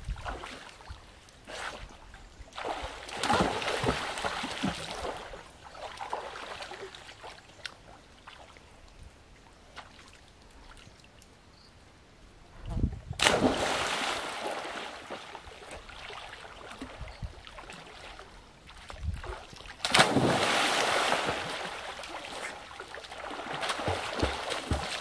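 Children jumping into a river: three loud splashes, each settling into sloshing water.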